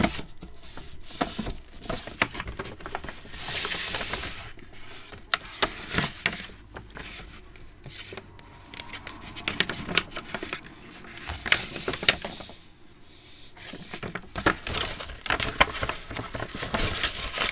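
Paper rustling and crinkling as a sheet of printed paper is folded, smoothed by hand and unfolded on a cutting mat, with scattered light taps and knocks.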